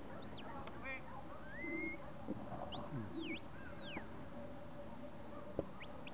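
Shepherd's whistle commands to a working Border Collie: a run of sharp whistled notes that sweep up and down, some held for about half a second, with a quick warbled trill about a second in and short rising blips near the end.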